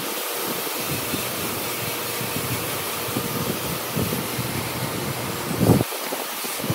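Steady hissing background noise, with soft handling knocks and one dull knock near the end as a metal speed square is set down on the timber block.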